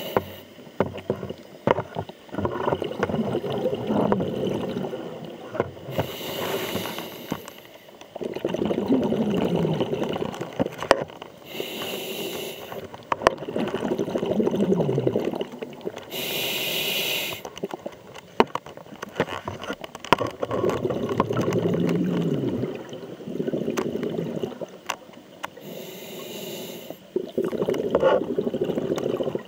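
Scuba diver breathing through a regulator underwater. A short hiss of inhaled air comes every several seconds, each followed by a few seconds of rumbling, gurgling exhaust bubbles.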